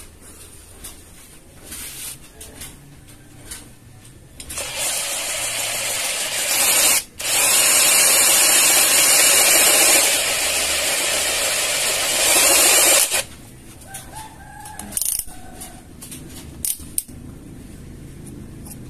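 Kamolee 10 mm brushless cordless drill, its standard factory-wound motor under load, drilling a 10 mm hole into a steel block. The drill runs loud for about eight seconds from around four seconds in, stopping briefly near the middle, then falls quiet apart from a few clicks.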